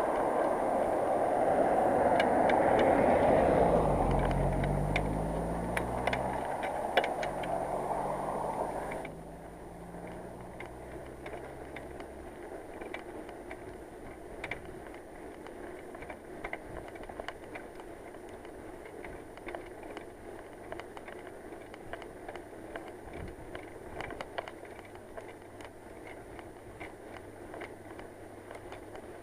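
A motor vehicle passes close by: its road noise swells over the first few seconds, its engine note shows as a low tone, and it drops away sharply about nine seconds in. After that there is a quieter background of cycling noise with scattered faint clicks.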